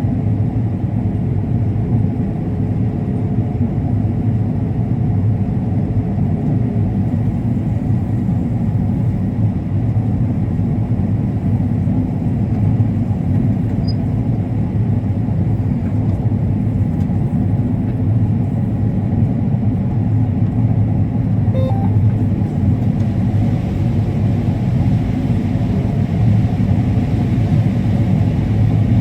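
Combine harvester running steadily while cutting corn: a loud, even low rumble with a faint steady hum above it.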